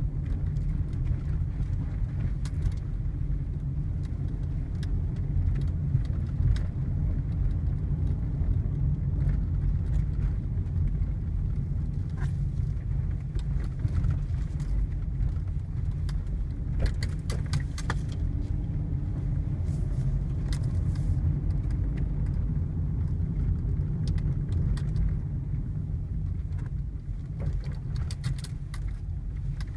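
Toyota Altezza on the move, with a steady low road rumble and many short, sharp knocks and rattles from its suspension, some coming in clusters.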